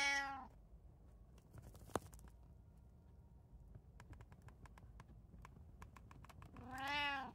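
Domestic cat meowing twice: a meow that tails off about half a second in, and a second meow near the end that rises and then falls in pitch. In between come a run of faint clicks and taps, with one sharper click about two seconds in.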